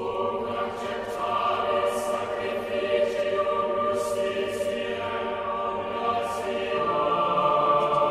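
Choral music: voices singing slow, sustained chords, moving to a new chord near the end.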